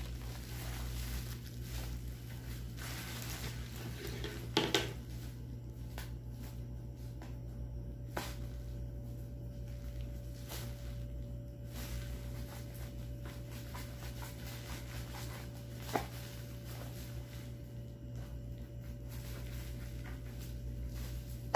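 Black bubble wrap being handled and pulled apart: scattered crinkles and clicks over a steady low hum, with a sharper click about five seconds in and another near sixteen seconds.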